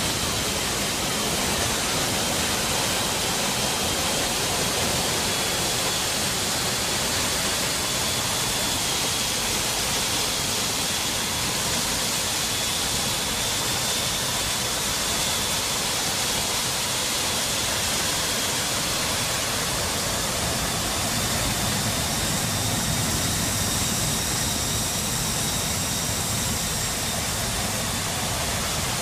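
Steady rush of wind and C-17 turbofan engines heard inside the cargo hold with the side paratroop door open in flight, with a faint high engine whine over it.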